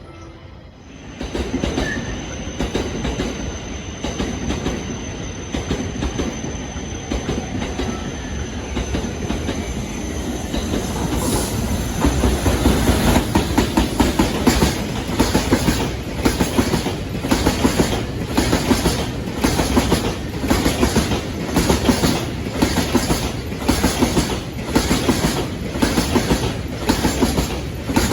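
Freight train passing close by, its wagon wheels clicking over rail joints. The clickety-clack grows louder and settles into a steady beat of about one clack a second from about twelve seconds in, with a thin high whine over roughly the first ten seconds.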